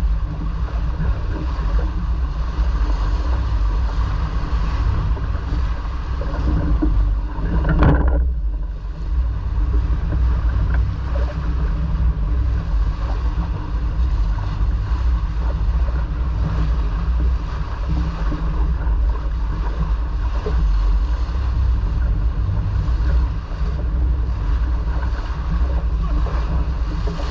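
Wind buffeting the microphone and water rushing along a sailboat's hull while it sails, a steady heavy rumble with one brief louder surge about eight seconds in.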